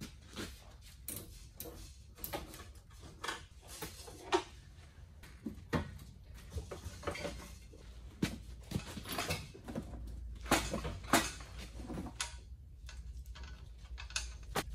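Irregular metal clanks and knocks from a car's steel front subframe being worked loose and shifted under the car, with the sharpest knocks about ten to eleven seconds in, over a low steady hum.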